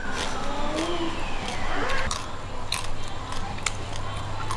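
Crisp roast suckling pig skin crackling in a run of sharp clicks as pieces are torn apart by hand, over steady background noise with a gliding tone in the first half.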